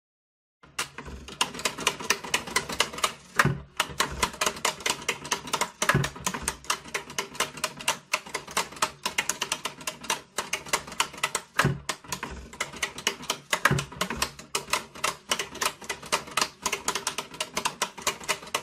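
Metal toggle switches on a wooden multi-switch "useless box" being flipped on by hand and back off by the box's arm: rapid clicking at several clicks a second, with a few louder knocks in between.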